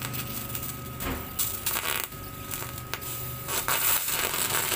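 TIG welding arc on a cast-aluminium motorcycle engine case, hissing and crackling in short bursts as the arc is struck and broken. The longest burst comes near the end. A faint steady high whine sits underneath.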